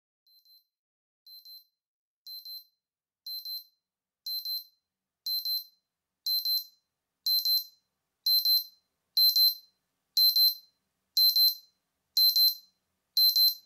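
Digital alarm clock beeping, a high double beep about once a second, starting faint and growing steadily louder.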